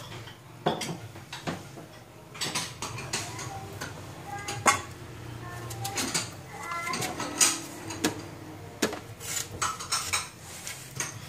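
Kitchen knife cutting bitter gourd on a wooden chopping board, giving irregular sharp knocks and clicks. Cut pieces are set into a stainless steel bowl with a clink.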